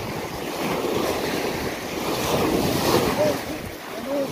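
Small waves washing up and draining back on a sandy beach, mixed with wind buffeting the microphone. The wash swells to its loudest about three seconds in.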